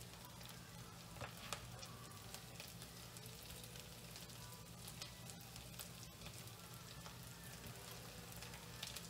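Faint sizzling of russet potatoes and onions frying in butter and oil in a skillet, with a few light clicks and scrapes of a slotted spatula lifting them out onto a plate, over a low steady hum.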